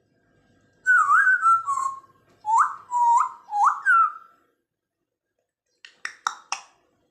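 African grey parrot whistling a quick run of about seven short notes, several sliding upward, like a ringtone. After a short pause come four sharp clicks in quick succession.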